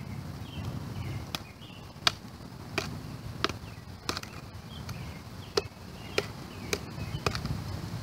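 Batoning: a wooden baton knocks down on the spine of a Spyderco Endura 4 folding knife set in a piece of firewood, driving the blade in to split it. About ten sharp knocks, a little over one a second, with a short pause in the middle.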